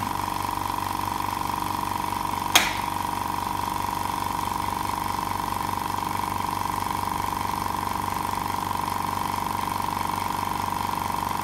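STARQ GA550 8-litre oil-free air compressor running steadily with an even hum, pumping its tank up toward its 8 bar cut-out. A single sharp click comes about two and a half seconds in.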